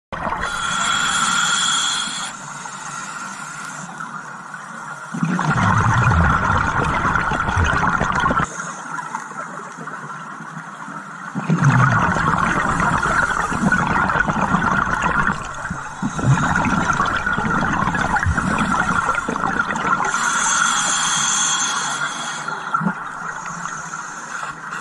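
Scuba diver breathing underwater through a regulator: a hissing inhalation near the start and again about 20 seconds in, and long rumbling bursts of exhaled bubbles between them. A steady high hum runs underneath.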